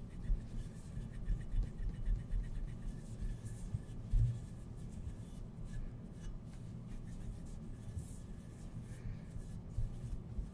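A waffle-weave towel rubbing and wiping over a silver-plated creamer as it is polished by hand: a soft, uneven scrubbing with handling bumps, the sharpest about four seconds in.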